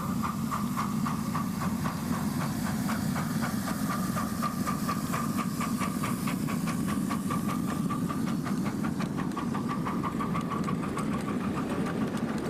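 Ride-on miniature steam locomotive and its cars passing: a steady hiss and a thin high whine, with rapid, even clicking of the wheels on the track.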